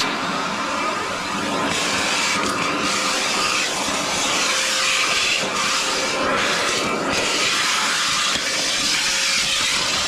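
Milwaukee M18 FUEL backpack vacuum running on high: a steady rush of air through the hose and nozzle, with a faint steady whine from its brushless motor.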